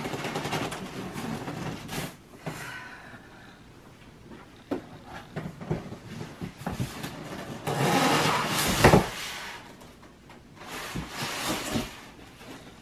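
Styrofoam packing block scraping and squeaking against a cardboard shipping box as it is worked loose and lifted out, with scattered knocks. The loudest scrape comes about two-thirds of the way through.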